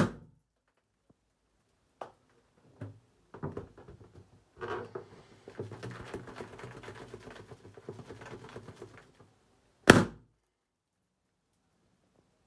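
Two sharp, loud pops of confetti-filled balloons bursting, one right at the start and another about ten seconds in. Between them come a few light clicks and a few seconds of balloons knocking and rubbing against the bathtub.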